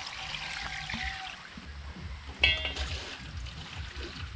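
Water poured from a plastic bucket into a metal bowl of mushrooms, splashing and trickling as they are rinsed. About two and a half seconds in, a single sharp knock with a short metallic ring is the loudest sound.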